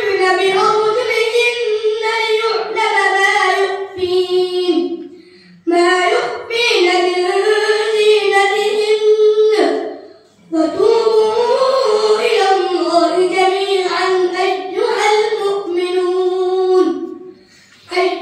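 A boy reciting the Quran in a melodic, drawn-out chant, holding long wavering notes, in three long phrases with short breaks for breath about four seconds in, about ten seconds in and near the end.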